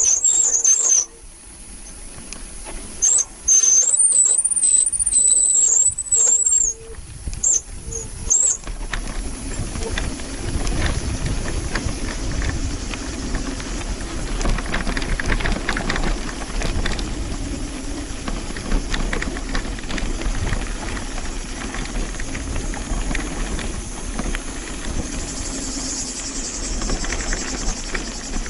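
Bicycle brakes squealing, high-pitched and wavering in pitch, in two loud stretches during the first eight seconds. After that, a steady low rumble of tyres and wind while riding.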